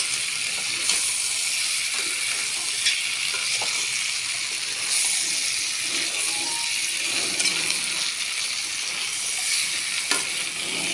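Chicken leg pieces frying in hot oil: a steady sizzle with scattered small pops.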